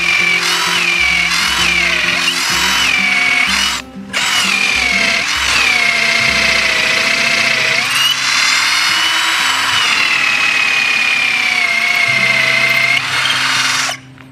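Kapusi 12 V cordless drill driver boring a 6 mm auger bit through thick mahogany, its motor whine sagging in pitch under load and picking up again. It stops briefly about four seconds in, then cuts off near the end as the bit comes through the wood. Background music plays underneath.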